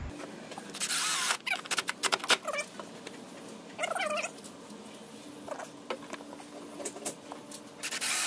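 Yellow DeWalt cordless drill running in two short bursts against the panel under the truck, about a second in and near the end. In between come several short, high animal calls that bend in pitch.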